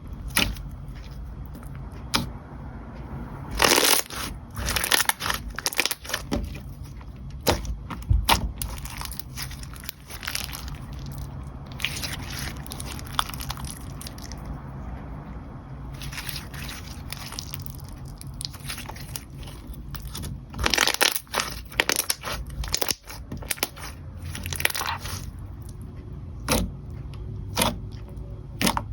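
Clear slime being squished and worked by hand, making short wet clicks and crackles at irregular intervals, with a few louder, denser clusters.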